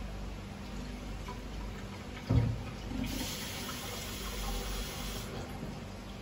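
A dull thump, then about two seconds of rushing, water-like hiss that starts and stops abruptly, over a steady low hum.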